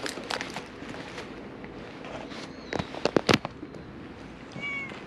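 Rustling of a jacket against a body-worn camera, with several sharp knocks close to the microphone, the loudest a quick cluster of three or four a little past halfway. A short high cry sounds near the end.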